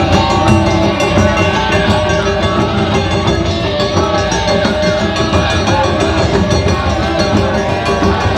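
Live taiko ensemble music: hira-daiko and other Japanese drums beating steadily under a pitched melody, loud and continuous.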